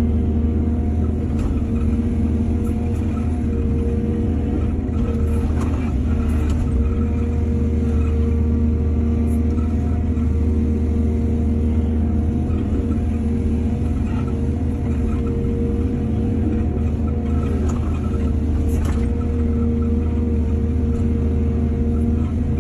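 Excavator's diesel engine running steadily under load, with a few faint brief clanks.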